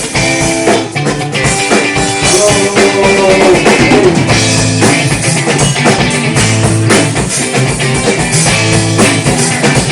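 A rock band playing live during a sound check: a drum kit with guitar and low bass notes, the drums keeping a steady beat.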